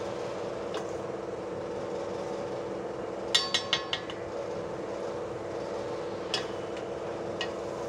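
Metal slotted spoon clinking against the side of an aluminium cooking pot while stirring a thick chicken and potato curry: a quick run of four ringing clinks about three and a half seconds in, then single clinks later. A steady hum runs underneath.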